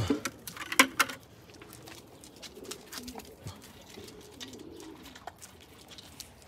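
Doves cooing in the background in soft, low, repeated coos, while dogs lap water from a bucket with small wet clicks. About a second in, the plastic bucket is set down with a sharp knock.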